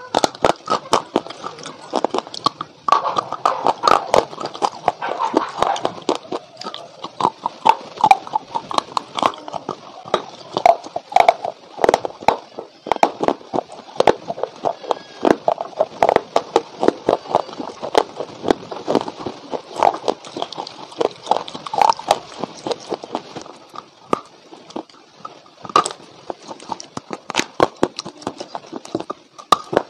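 Close-miked biting and chewing of dry white clay blocks: sharp cracks as pieces snap off between the teeth, then a dense, irregular string of crunches as they are chewed.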